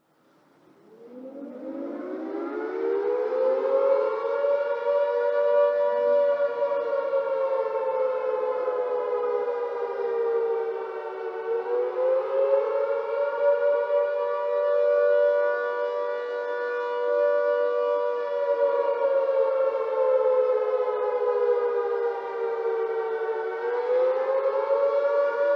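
Civil defense air-raid siren winding up from a low pitch over the first few seconds, then wailing with two close pitches at once, its pitch slowly sinking and climbing again about every twelve seconds.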